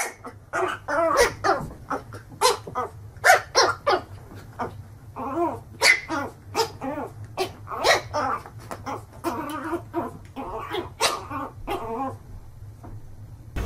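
Small puppy yapping over and over in quick high-pitched barks, with a few whimpers and growls mixed in, as it jumps at its own reflection in a mirror.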